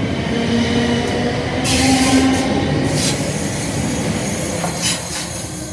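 South Western Railway third-rail electric multiple unit running close past and pulling away: a loud rumble of wheels on rail with a low motor hum that rises a little in pitch, bursts of high hiss about two and three seconds in and again near the end, and the sound slowly falling away as the train recedes.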